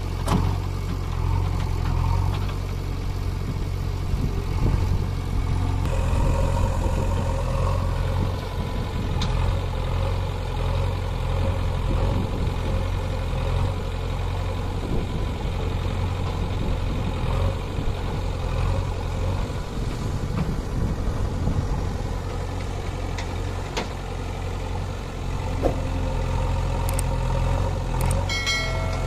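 JCB backhoe loader's diesel engine running steadily as it digs and loads soil, with a tractor's diesel engine idling alongside.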